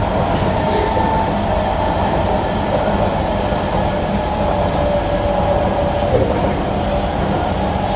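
Interior of a Kawasaki/CRRC Qingdao Sifang C151B metro train running between stations: a steady rumble of the car with faint thin high tones held above it, one dipping briefly about six seconds in.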